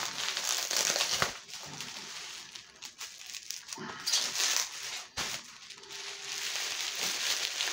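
Plastic wrapping crinkling and rustling as it is handled, with a few sharp clicks.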